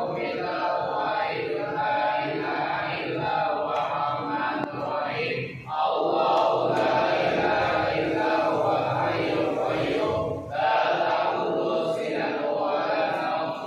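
A group of men chanting Islamic prayers in unison at a graveside, many voices together, with two short breaks about six and ten seconds in.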